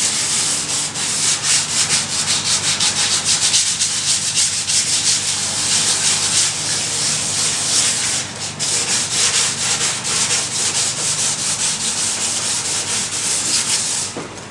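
Wet 800-grit sandpaper rubbing over the epoxy-coated foam nose of an RC model airliner: a steady, rasping hiss made of quick repeated strokes. It breaks off briefly about eight seconds in, then carries on until it stops near the end.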